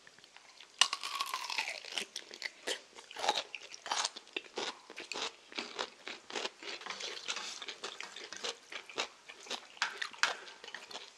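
Crisp crunching of chonggak kimchi (whole young ponytail radish kimchi): one sharp bite about a second in, then repeated crunchy chewing close to the microphone.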